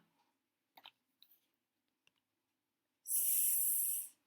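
A man's voice sounding out a drawn-out hissing 'sss', the phonics sound for the letter S, for about a second near the end, after a few faint clicks.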